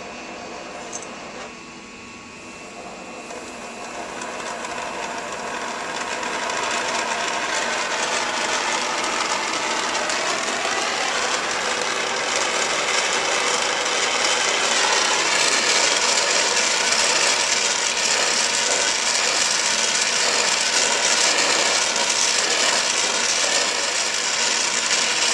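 Acetylene torch flame hissing steadily. It grows louder over the first dozen seconds, then holds. A single click comes about a second in.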